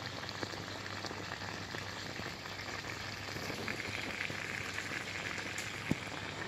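Water in a glass fizzing and crackling around two live razor-blade electrodes as it heats towards the boil, over a steady low hum; one sharper click near the end.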